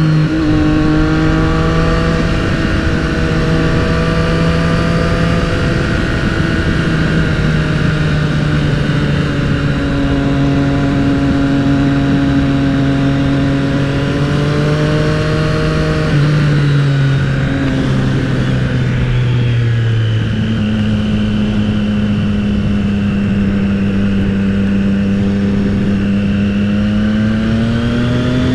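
Motorcycle engine running at a steady cruising pace with wind rush over the helmet-mounted microphone. The engine note eases down about two-thirds of the way through and climbs again near the end.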